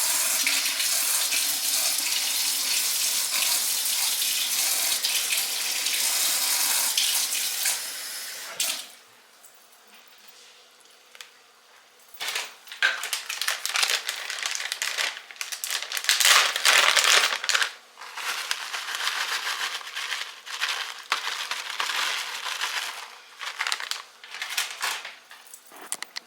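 Kitchen tap running steadily into a container, shut off about eight or nine seconds in. After a short quiet come irregular scraping and clatter, in keeping with biscuit mix being stirred with water in a bowl.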